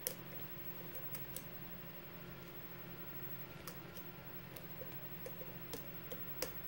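Faint, irregular ticks and clicks of a lock being single-pin picked: a worn Sparrows Matador hook pick lifting pin stacks against tension in the plug, a few sharper clicks among them.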